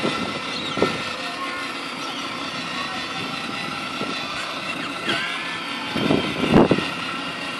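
Battery-powered ride-on toy cars driving on asphalt: a steady whine from their small electric motors over the rolling of their plastic wheels, with a brief louder rumble about six seconds in.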